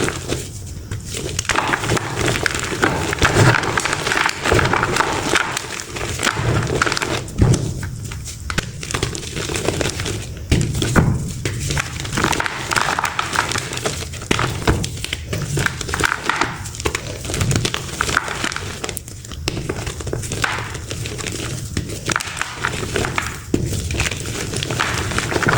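Dusty reformed chalk blocks being crushed and crumbled by hand, crunching and crackling in spells with short pauses between.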